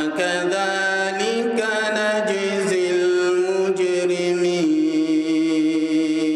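A man chanting Quranic recitation in drawn-out, ornamented notes, settling on one long held note about two thirds of the way through.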